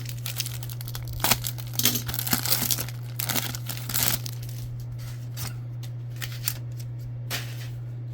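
A trading card pack wrapper being torn open and crinkled, with a dense run of rustling in the first half, then a few light clicks and rustles as the cards are handled. A steady low hum runs underneath.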